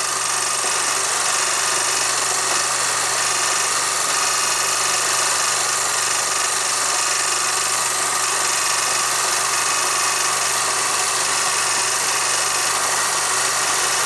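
Film projector running: a steady hiss with a low hum and a faint high tone that hold unchanged throughout.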